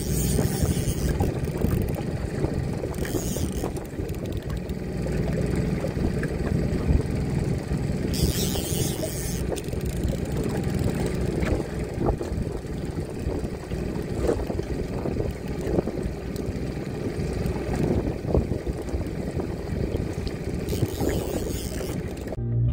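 Boat motor running steadily at trolling speed, with wind rumbling on the microphone and a few brief gusts of hiss.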